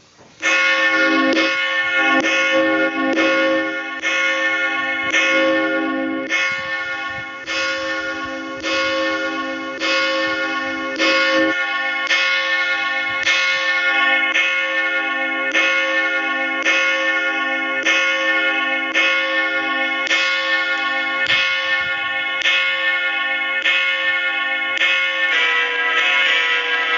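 Church bells ringing, two bells sounding together, struck in a steady rhythm of about three strokes every two seconds with a long ring between. The bells come in suddenly about half a second in, and the mix of notes changes near the end.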